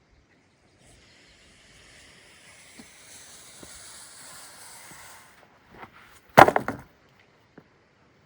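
A hiss builds for about four seconds, then a single loud wooden knock with a short clatter, followed by a few lighter knocks.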